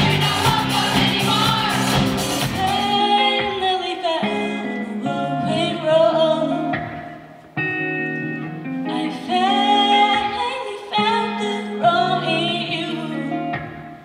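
Live pop music: a group of young singers with a full band and cymbals for about three seconds, then the drums drop out and a solo female voice sings over guitar, with a brief break in the middle.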